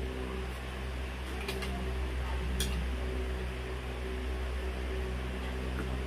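Steady low machine hum of room equipment, with two or three light clinks of a metal spoon against a ceramic bowl of blended food, about one and a half and two and a half seconds in.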